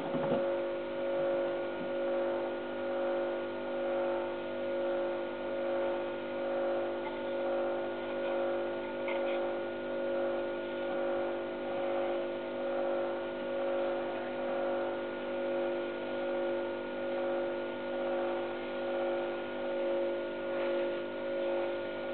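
Small woodturning lathe running steadily, its motor hum rising and falling in loudness about once a second, while a small mahogany mushroom turning is worked by hand on it. A sharp click right at the start.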